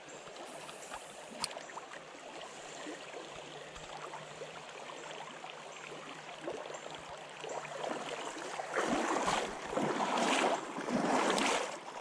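Shallow river water running over a rocky riffle, a steady rushing noise, with a single sharp click about a second and a half in. Over the last few seconds the water noise grows louder in uneven surges.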